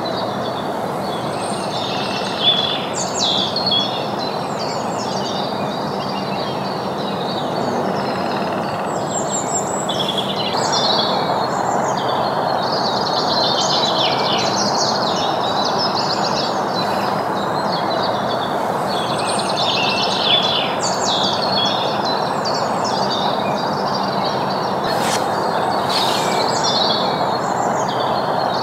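Several small songbirds chirping and singing over a steady rushing background noise, which gets a little louder about ten seconds in.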